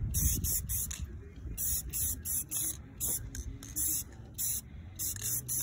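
Aerosol spray-paint can hissing in many short squirts, several a second in quick clusters with brief gaps between them.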